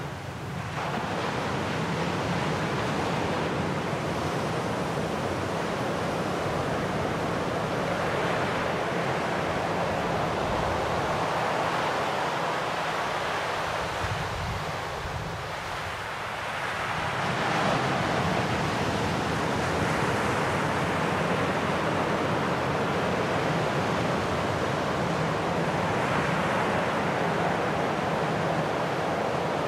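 Sea waves washing onto a shore: a steady rush of surf that swells and eases, softening a little about halfway through and then building again.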